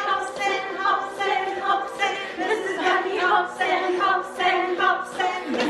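Group of women singing a children's action song together.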